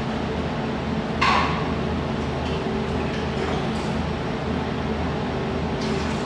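Steady low machine hum, with one sharp metallic clink about a second in.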